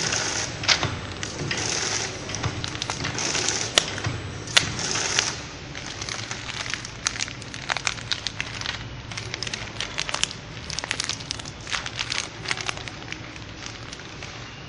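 Filled plastic snack pouch of roasted beans crinkling and crackling as it is handled, loudest in the first few seconds, with scattered sharp clicks after that.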